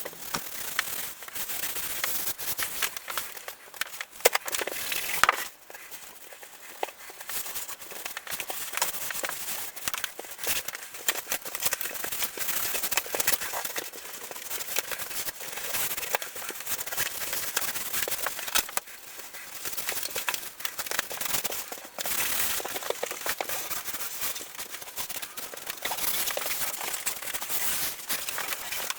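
Headliner fabric crackling and rustling as it is handled and pressed onto the glued headliner panel, with many small sharp clicks, dropping quieter for a couple of seconds after about five seconds in.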